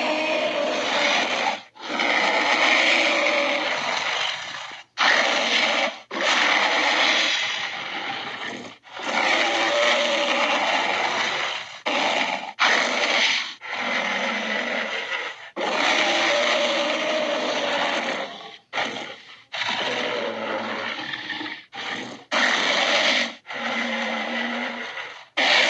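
A string of Albertosaurus dinosaur roar sound effects: about fifteen harsh, raspy roars and growls, most lasting one to three seconds and a few much shorter, each followed by a brief pause.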